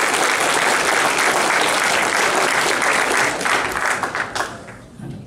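Audience applauding a comedian coming on stage, dying away near the end.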